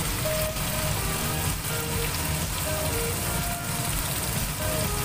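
Chili paste sizzling steadily as it fries in oil, under background music of short held notes.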